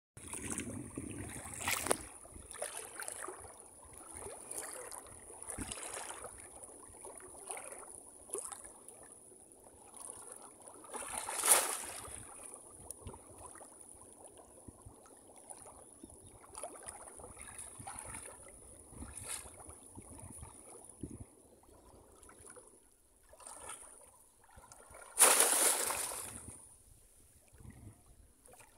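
Water sloshing and splashing as people wade through thigh-deep floodwater and push bamboo plunge-basket fish traps down into it. The splashes come irregularly, with a few louder ones and the loudest near the end.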